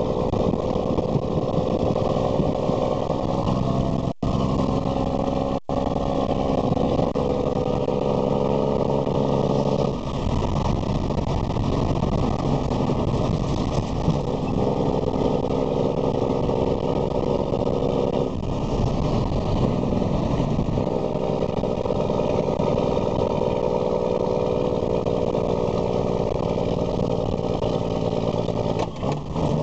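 Cummins 330 diesel engine of a Freightliner semi truck, heard from inside the cab as the truck pulls along the highway. The engine note holds steady for long stretches and breaks off a few times before settling again.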